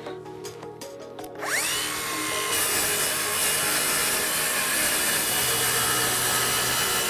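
Festool HKC 55 cordless circular saw starting up with a rising whine about a second and a half in. It then runs steadily as it makes a plunge cut through chipboard along a guide rail.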